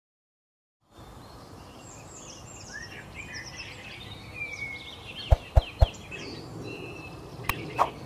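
Songbirds chirping and whistling over outdoor background hiss. Three sharp clicks come in quick succession midway through, and two more near the end.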